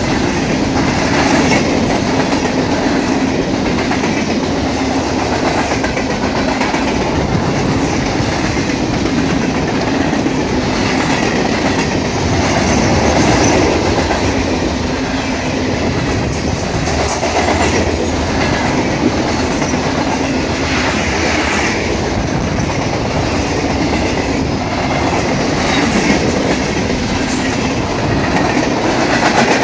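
Freight train cars rolling past at speed, wheels clicking over rail joints in a steady, continuous clatter.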